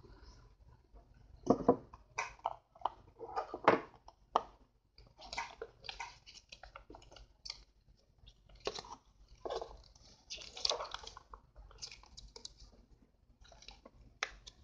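A cardboard box being opened and folded paper leaflets handled: irregular rustling and crinkling, with two louder bumps about one and a half and four seconds in.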